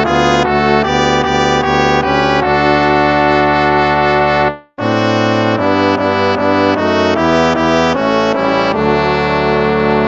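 Instrumental hymn played in slow, held chords on brass instruments. It breaks off about four and a half seconds in and starts the next phrase a moment later.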